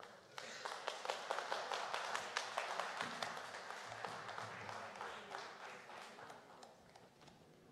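Audience applauding: dense clapping that breaks in suddenly, then slowly thins and dies away.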